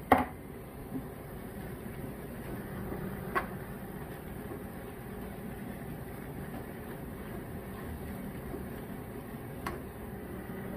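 Steady mechanical hum, like a kitchen appliance or fan running, with a sharp knock just after the start and two fainter clicks, one about three and a half seconds in and one near the end.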